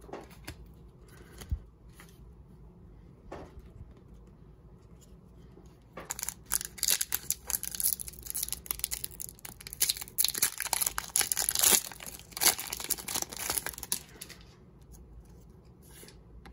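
A Pokémon trading-card booster pack's foil wrapper being torn open and crinkled: a few light clicks, then a dense run of crackling from about six seconds in until about fourteen seconds.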